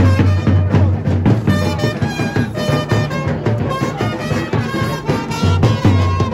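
Music with drums keeping a steady beat over a heavy pulsing bass and a melodic line.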